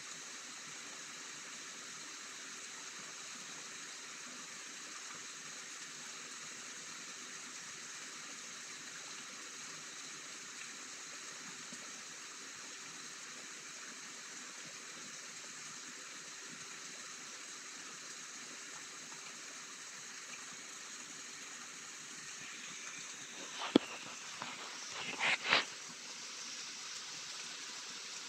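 Steady hiss of rain during a thunderstorm. About 24 seconds in comes a sharp click, and a second or so later a quick cluster of two or three brief, louder sounds.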